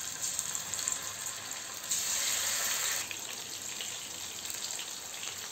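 Cornflour-coated marinated chicken pieces frying in hot oil in a kadai: a steady sizzle, louder for about a second around two seconds in.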